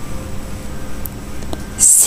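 Steady background hiss of the narration track between spoken words. Near the end a voice starts speaking with a sharp 's' sound.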